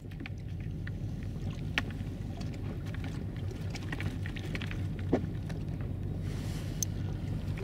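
Boat motor running steadily, a low even hum, with water noise and a few short light knocks.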